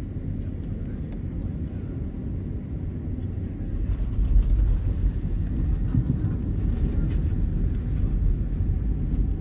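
Low rumble in the cabin of a Boeing 767-300 during landing, swelling louder and deeper about four seconds in and staying up.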